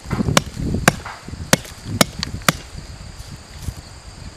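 Fixed-blade knife hacking into a rotting tree stump: about five sharp chopping strikes in the first two and a half seconds, then quieter work in the soft, rotten wood.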